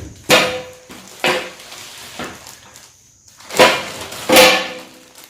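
Metal parts of an all-metal appliance trolley stand clanking against each other as they are handled and unpacked: about five sharp clanks, each ringing briefly.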